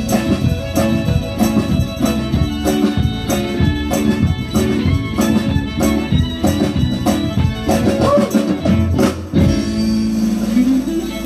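Live zydeco band playing: accordion, fiddle, acoustic guitar, bass and drums over a steady beat. About nine seconds in the beat stops, leaving a held chord.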